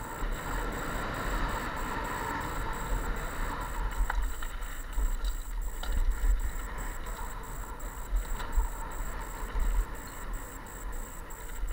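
Wind buffeting a helmet-mounted camera's microphone over the hiss of mountain bike tyres rolling fast on a gravel trail, with a few small clicks and rattles along the way.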